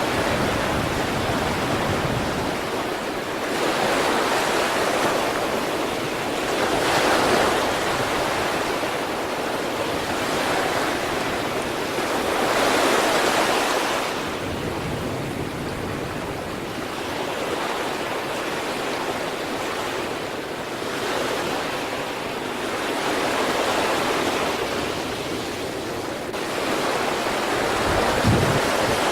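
Sea waves breaking and washing on the shore, a continuous surf hiss that swells and eases with each wave every few seconds.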